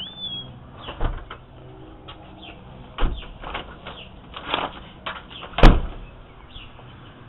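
A few dull thumps and knocks from close handling and movement, the loudest a sharp knock about two-thirds of the way through, with birds chirping faintly in the background.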